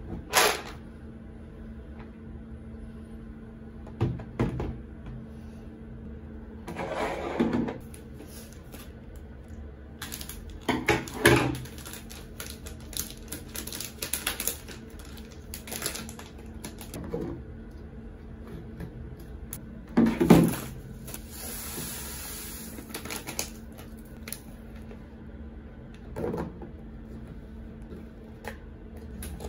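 Clear plastic food storage containers being filled and closed: scattered knocks and clicks of the plastic lids and tubs, packet rustling, and a stretch of dry food pouring with a hiss around twenty seconds in. A faint steady hum runs underneath.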